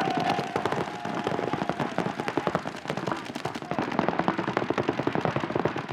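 Several paintball markers firing rapid strings of shots at once, a dense, steady stream of sharp pops with no pause.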